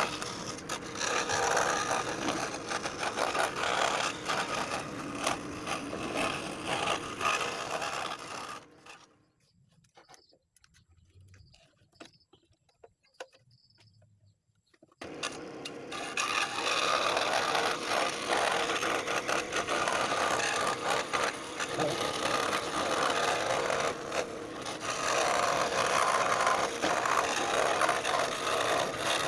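Scroll saw cutting wood: a steady, rasping run that stops about nine seconds in. After some six seconds of near quiet it starts again and runs on.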